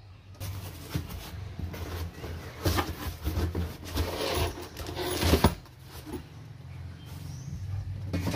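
Cardboard box flaps being pulled open and folded back by hand: rustling and scraping with a few sharp knocks, over a steady low hum.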